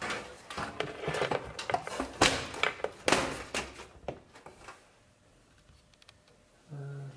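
Front panel of an Aerocool Split computer case being fitted back onto the steel chassis and pressed home by hand: a quick run of knocks and clicks that dies away after about four seconds.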